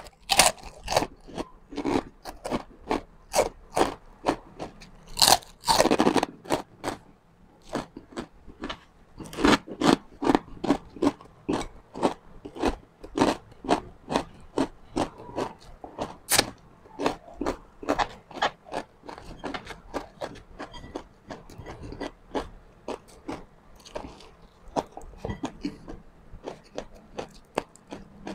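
Close-up chewing and crunching of crispy pork chicharon, a steady run of crisp crunches about three a second, with a few louder bites.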